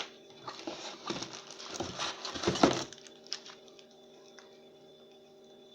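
Handling noises from unpacking a tripod: irregular rustling and knocks for about three seconds, loudest near the middle, then only a steady low hum.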